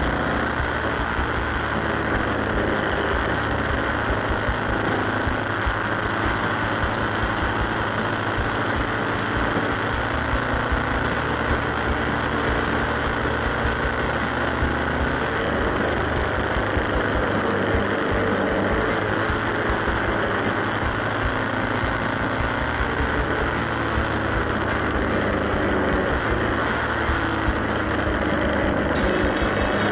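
Motorcycle engine running at road speed, its note rising and falling a little with the throttle, under heavy steady wind noise on the microphone.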